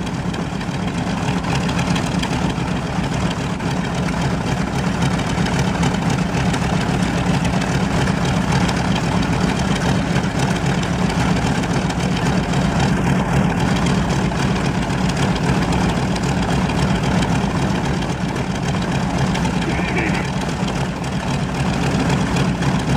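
B-25 Mitchell bomber's Wright R-2600 Twin Cyclone radial engine running steadily with the propeller turning.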